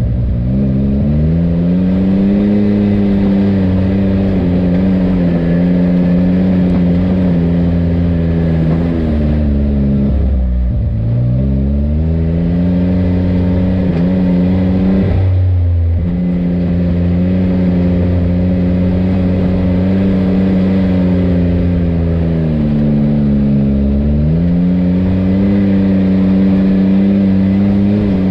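Side-by-side UTV engine running at a steady speed, its pitch dropping as the throttle eases off and climbing back as it accelerates: once at the start, again about ten seconds in, and near the end. The engine note breaks off briefly about fifteen seconds in, then returns at the same steady pitch.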